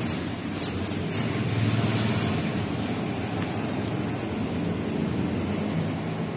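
Clear plastic wrapping crinkling briefly a few times in the first couple of seconds as a feature phone is handled out of its box, over a steady background of low hum and hiss.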